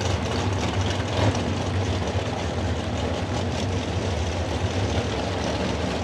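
Drag-racing V8 engines idling with a steady, deep rumble, with a slightly louder moment about a second in.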